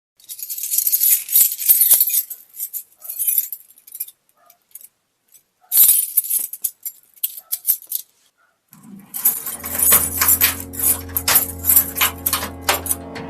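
Sound effects: a jingling, clinking rattle in bursts over the first few seconds and again around six seconds in. From about nine seconds in, a steady low hum with a run of sharp clicks over it.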